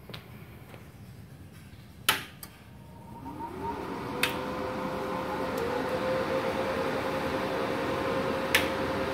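MultiPro MMA inverter welding machines being switched on one after another: three sharp power-switch clicks, about two seconds in, about four seconds in and near the end. After the first click a cooling fan spins up, its hum rising in pitch and settling into a steady whir that grows as more machines start.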